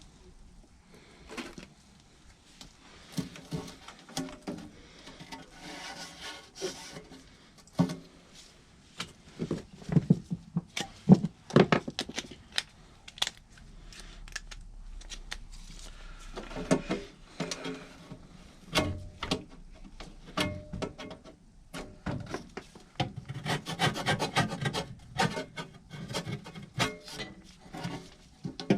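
Hand work on parts: irregular scraping and rubbing with many clicks and knocks, in stretches with short pauses between.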